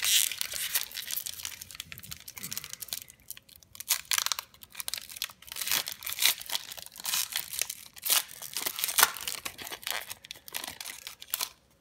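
Foil trading-card pack wrapper being torn open and crinkled by hand: a dense, irregular crackling and rustling of thin foil that stops shortly before the end.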